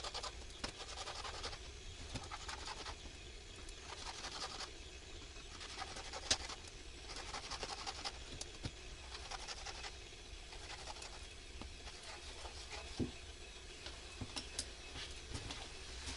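Irregular rustling and scratching that comes and goes in patches, with a few sharp clicks.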